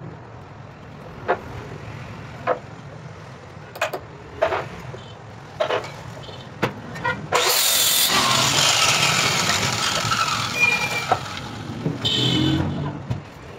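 A handheld electric circular saw starts suddenly about seven seconds in and cuts through a laminated plywood board, its whine falling in pitch as it runs, for about five seconds. Before it, a series of sharp wooden knocks as the board and a straightedge batten are set in place.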